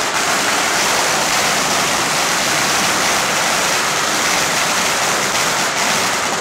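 A long string of Chinese firecrackers going off in a loud, dense, continuous crackle that cuts off right at the end.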